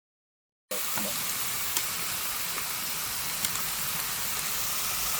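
Meat sizzling on a barbecue grill: a steady frying hiss with a few small pops, cutting in suddenly under a second in after dead silence.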